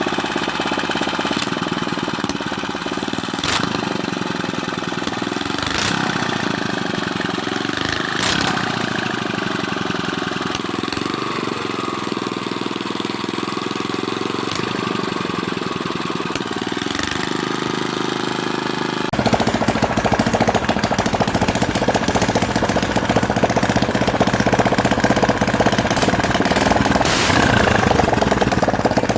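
Ketinting longtail-boat engine running steadily with a rough, knocking beat. About two-thirds of the way through, the sound suddenly becomes louder and heavier.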